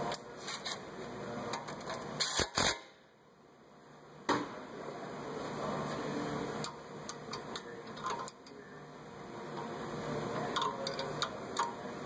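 Scattered metal clicks and clinks of a wrench and hand tools being handled at a brake caliper, over a steady workshop hum. A few louder knocks come about two and a half seconds in, then the background drops away for over a second before another sharp knock.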